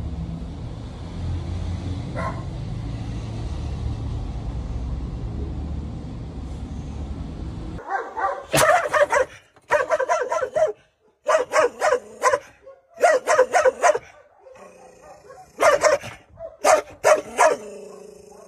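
A steady low rumble for about the first eight seconds, then a caramelo mixed-breed dog shut in a transport crate barking aggressively. The barks come in six rapid bursts of several barks each, with short pauses between.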